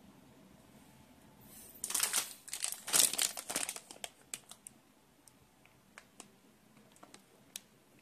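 Clear plastic bag of a packaged jump rope crinkling as it is picked up and handled: a dense run of crackling about two seconds in, then scattered single crackles.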